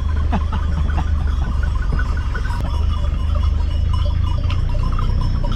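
Many small sheep bells clinking irregularly as a flock moves, over a steady low rumble.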